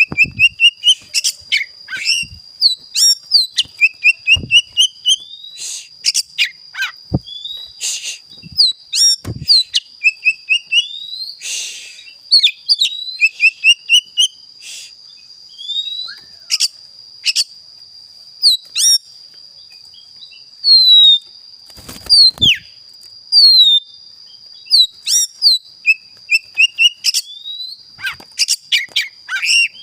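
Oriental magpie-robin singing a long, varied run of loud whistled phrases and rapid rising chirps, its song filled with calls mimicked from other birds.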